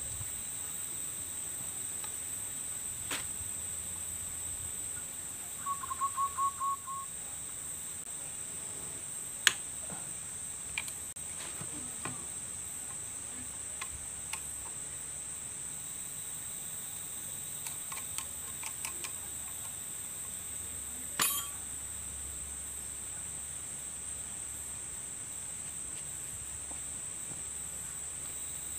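Steady high-pitched drone of insects throughout. Over it come scattered light clicks and taps as the brush cutter's gearbox head is handled, the sharpest a single knock about ten seconds in.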